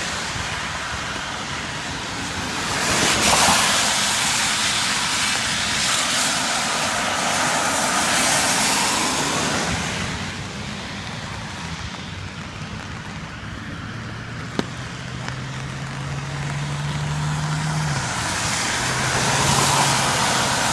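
Road traffic on a rain-wet road: the tyre hiss of passing cars swells and fades, once over several seconds and again near the end. Midway a low engine hum is heard for a few seconds, with a brief sharp click.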